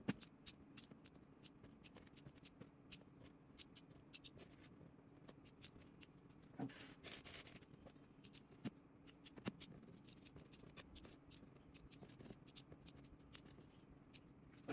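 Faint clicking of small plastic alphabet beads being picked up and dropped into the compartments of a clear plastic organizer box: scattered quick ticks, with a brief denser rattle about seven seconds in.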